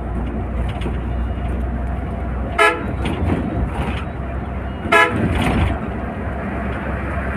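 Volvo coach driving at speed, heard from inside the cabin as a steady low drone of engine and road, with two short horn toots about two and a half seconds apart as it passes a slower bus.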